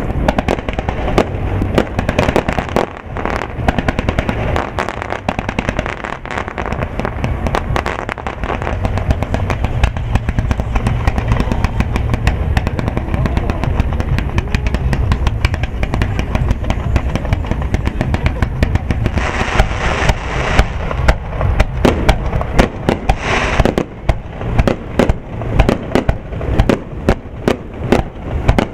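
Fireworks display: a rapid, continuous barrage of bangs and crackling from bursting aerial shells over a low rumble. A hiss rises about two-thirds of the way through and again a few seconds later, and near the end the bangs come as separate sharp reports, several a second.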